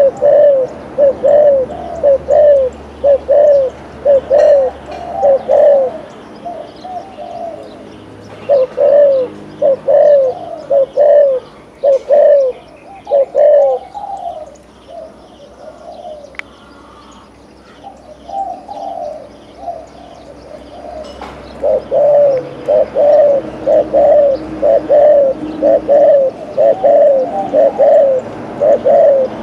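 Spotted dove giving its rapid courtship cooing (the 'gù' that Vietnamese dove keepers prize), short coos about two a second in runs of several seconds. A brief pause comes a quarter of the way in, and a longer lull comes around the middle.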